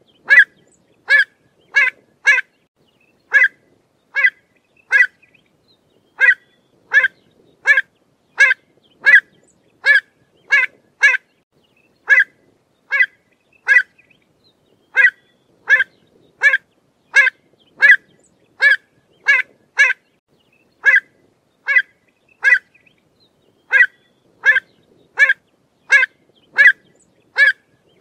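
Pied avocet calling: short, sharp, clear notes repeated about once or twice a second in runs, with brief pauses between runs.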